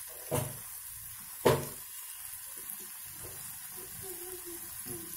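Two sharp knocks about a second apart, the second louder: a plastic spatula striking the rim of an aluminium kadai while stirring chopped capsicum and tomato. A steady faint hiss runs underneath.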